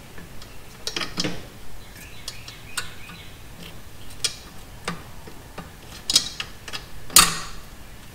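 Irregular small metallic clicks and taps as a clutch cable end is worked through the bell housing ear and hooked into the clutch release fork. The loudest click comes about seven seconds in.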